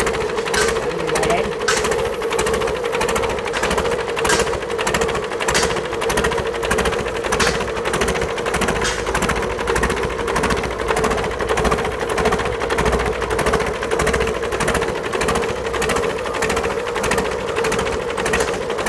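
Yanmar 4CHS-T turbocharged marine diesel engine running steadily with a fast, even clatter over a steady hum.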